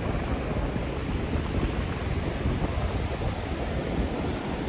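Steady wind noise on the microphone over the continuous wash of ocean surf.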